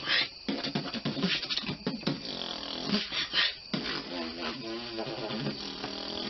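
A man beatboxing: a quick rhythm of sharp mouth-made drum hits mixed with short hummed, wavering tones.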